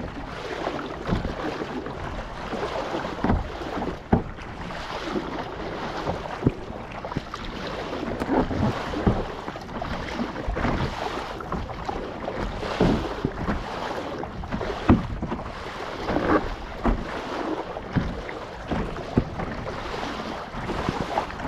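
Sea water splashing and lapping against a kayak in irregular sharp splashes, with wind buffeting the microphone.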